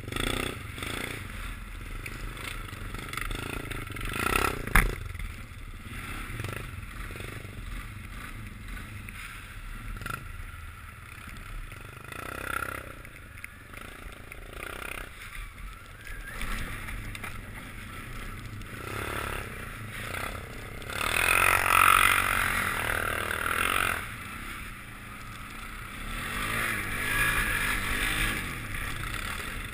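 ATV engine running as the quad is ridden along a snowy wooded trail, with a sharp knock about five seconds in and the engine getting louder for a few seconds about two-thirds of the way in.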